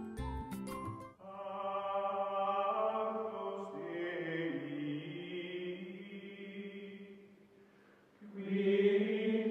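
Outro music: a second of music with sharp plucked or struck notes, then a choir-like chant of long held chords that shift once and fade out, and a second loud held chord that comes in near the end.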